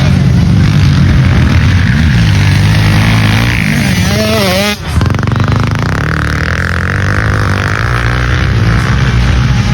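Motocross bike engine running hard under race riding, its pitch rising and falling as the throttle is worked. A quick wavering of pitch about four seconds in, then a brief drop in sound just before the five-second mark, after which it runs steadier.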